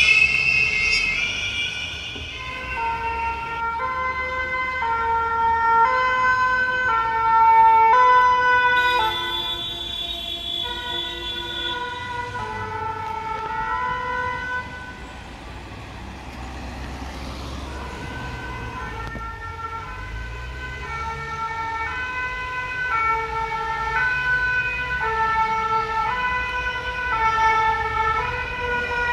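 French fire-rescue ambulance's two-tone siren, alternating between two notes, passing with traffic noise beneath. It dips in loudness about halfway through and grows louder again toward the end.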